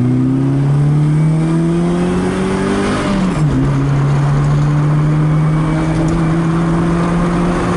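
A VAZ 2103's Lada 2112 16-valve four-cylinder engine, heard from inside the cabin, revs up under acceleration. About three seconds in the revs drop with an upshift, then climb slowly again as the car pulls in third gear.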